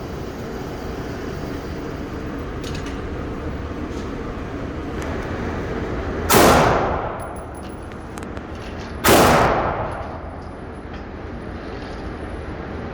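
Two Glock pistol shots about three seconds apart, each sharp crack followed by about a second of echo dying away.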